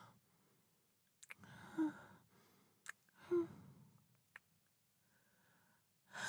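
A woman's two breathy sighs about a second and a half apart, each with a brief hummed "mm" in it, with a few small mouth clicks between them.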